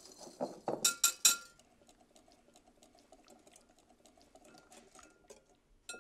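Wire whisk working in a glass mixing bowl: several loud clinks of the whisk against the glass in the first second and a half, then softer, steady whisking of a thick honey-mustard mixture, with clinks again just before the end.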